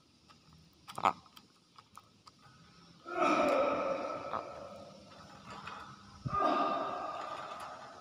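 Hill myna mimicking a human cough twice, each a raspy sound that starts suddenly and trails off over a second or more. A short sharp click comes about a second in.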